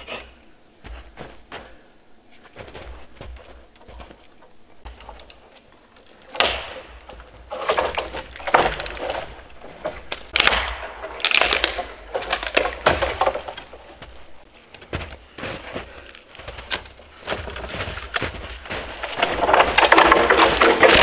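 A dead standing tree being pushed over and pulled down by hand: a series of wood cracking and breaking noises as the trunk snaps and scrapes down through neighbouring branches, with the longest and loudest one near the end.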